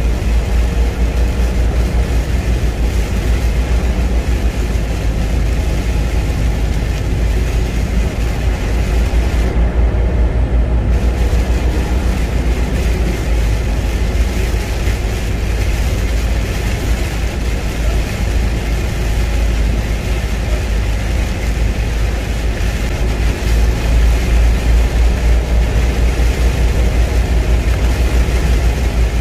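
Semi-truck driving on a rain-soaked highway, heard from inside the cab: a steady deep engine drone under an even hiss of tyres on wet road and rain.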